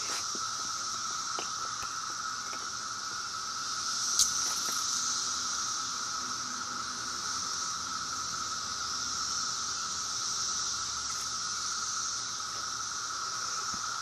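Chorus of 17-year periodical cicadas (Brood X): many males calling together to attract mates, making a steady, unbroken drone with a lower and a higher pitch. A brief sharp knock sounds about four seconds in.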